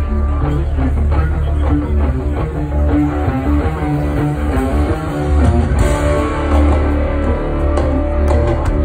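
Live rock band playing loud: electric guitar lines over a heavy, steady bass.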